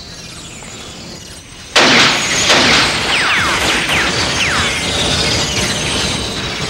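Film sound effects: a sudden loud crash a little under two seconds in, then a noisy clattering din with several short falling whistle-like tones.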